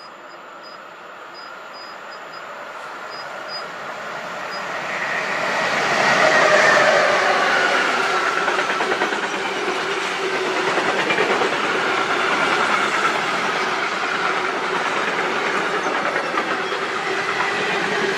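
A train approaching and then passing close by. The sound builds over the first six seconds to its loudest, with a falling tone as the front goes past, then settles into a steady clatter of wheels on the rails as the cars roll by.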